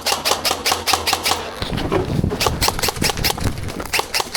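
Airsoft guns firing rapidly, a sharp crack several times a second, as sustained heavy fire.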